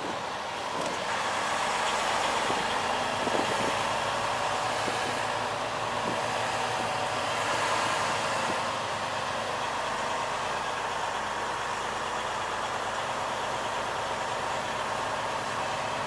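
Semi truck's diesel engine and cab noise heard from inside the cab while the truck drives slowly; steady throughout after a slight rise about a second in.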